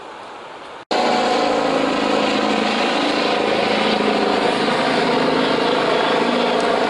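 A steady engine hum with several even tones, cutting in abruptly about a second in after a faint wind-like hiss.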